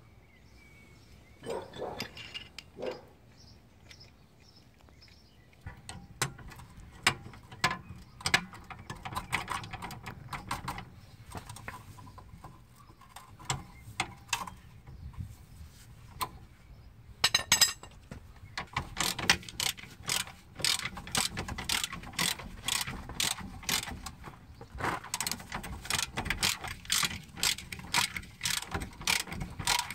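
Ratchet wrench clicking as it turns the lower shock absorber mounting bolt on the rear axle of a VW Golf Mk4. The clicks come in uneven short runs at first, then in a rapid, steady run for about the last third.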